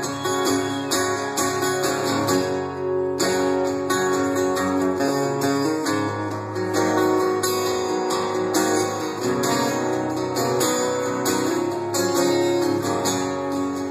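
Acoustic guitar strumming chords in a steady rhythm during an instrumental break in a live country song.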